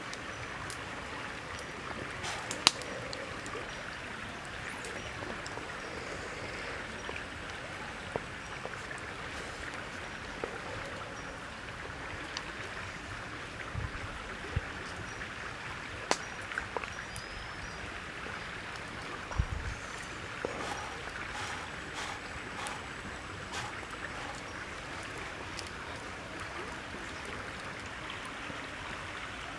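Steady rushing background noise, with scattered small sharp clicks and a few short dull thumps partway through.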